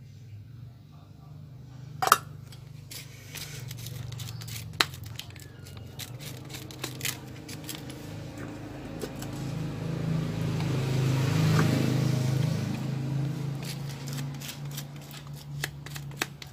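Light clicks and knocks of leather collar pieces and a metal swivel clip being handled on a cardboard mat, the sharpest about two seconds in. Under them runs a low hum that grows louder towards two-thirds of the way through and then eases.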